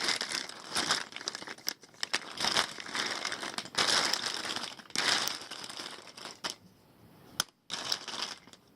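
Plastic Bic lighters being shuffled and pushed around in a pile, rustling and crinkling with sharp clicks as they knock together. It thins out near the end, with one last click.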